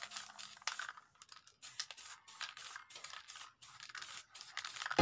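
Aerosol spray-paint can hissing in many short, quick bursts as it lays a first coat of paint.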